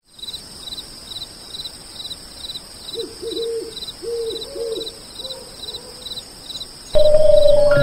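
Night ambience of crickets chirping steadily, about two chirps a second, with an owl giving a run of short hoots in the middle. Near the end a louder sustained musical note comes in as the song's music begins.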